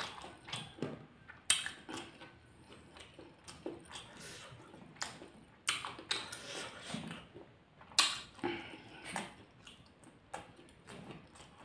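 Close-miked eating sounds: a man chewing and smacking his lips on mouthfuls of sausage fried rice eaten with his fingers. Irregular sharp smacks and clicks, the loudest about a second and a half in and again about eight seconds in.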